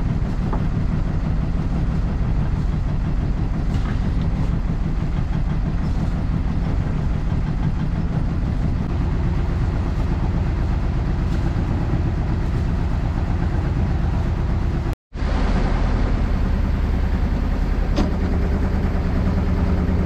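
Fishing boat's engine running steadily at low speed while a longline is paid out. Its note shifts slightly about nine seconds in, and the sound cuts out completely for a split second about fifteen seconds in.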